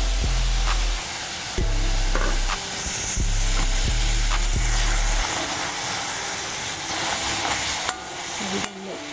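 Seasoned chicken pieces sizzling in hot, nearly black burnt sugar in a metal pot as a metal spoon stirs them, with a steady frying hiss and occasional clicks of the spoon against the pot.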